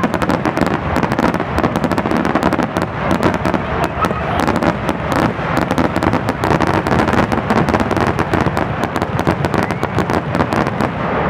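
Aerial fireworks going off in a rapid, unbroken barrage: many shell bursts and crackles overlapping, several bangs a second.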